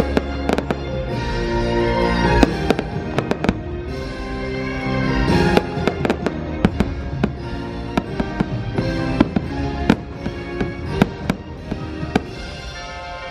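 Aerial fireworks bursting in a fast, irregular run of sharp bangs and pops over the fireworks show's music.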